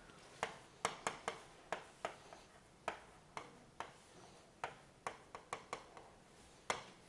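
Digital pen stylus tapping and clicking on its writing surface while handwriting a word: a string of short, sharp, irregular ticks, two to three a second.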